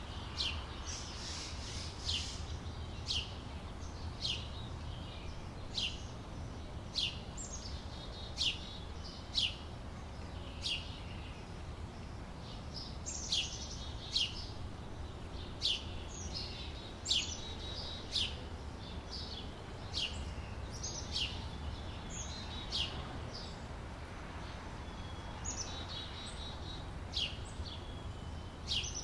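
Summer daytime outdoor ambience: small birds chirping, with short sharp falling chirps about once a second and a few brief warbling phrases, over a steady low background rumble.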